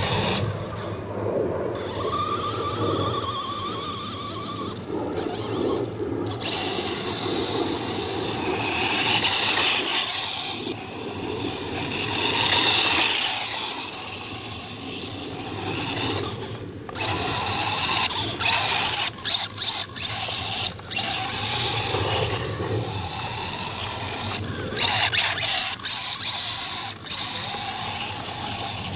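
Kyosho Ultima Pro RC buggy with a G-Force brushless motor driving on grass: a high electric motor whine with gear noise that rises and falls with the throttle. About two-thirds of the way through it starts cutting in and out in quick pulses as the throttle is blipped.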